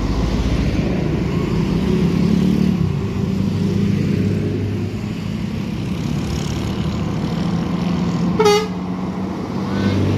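Road traffic passing close by: trucks, motorcycles and a bus driving past with a steady engine drone. A vehicle horn toots once, briefly, about eight and a half seconds in.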